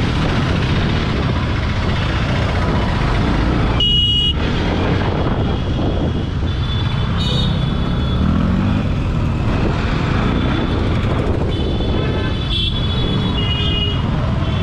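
Riding a motorcycle through dense city traffic: a steady rumble of engine, wind and traffic, with high-pitched vehicle horns beeping several times, about four seconds in, around seven seconds, and again between twelve and fourteen seconds.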